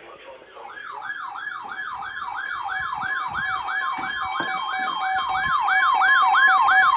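Electronic yelp-style siren, its pitch sweeping up and down about three times a second, starting about half a second in and growing steadily louder.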